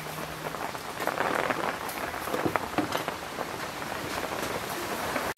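Steady heavy rain falling on the surroundings, with a few scattered clicks and scrapes of hands working coarse salt over a catfish in a stainless steel bowl.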